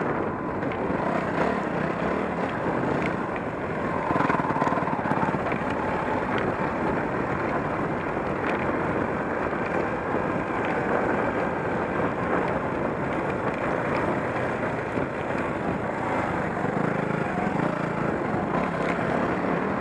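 Yamaha WR250R's single-cylinder four-stroke engine running steadily as the bike is ridden slowly over snow, with a few light clicks.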